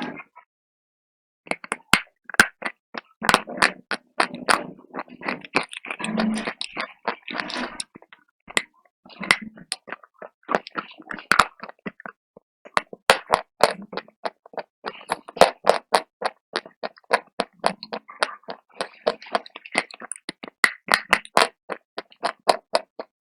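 Close-up crunching and chewing of slate pencil pieces: many sharp, brittle cracks in quick irregular succession, with gritty chewing noise between them. It starts about a second and a half in.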